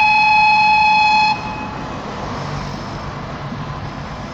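Diesel locomotive horn sounding one steady single-note blast that cuts off about a second and a half in, followed by a low engine rumble.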